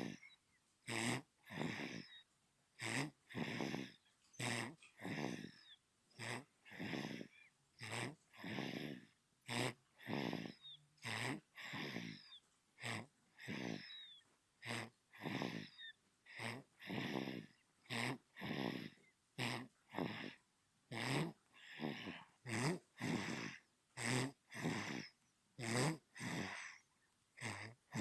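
Sleeping newborn baby snoring, with short, regular breaths coming a little under two a second.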